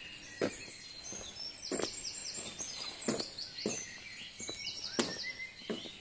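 Several songbirds singing and calling, with runs of quick falling high notes, over steady footsteps about every two-thirds of a second.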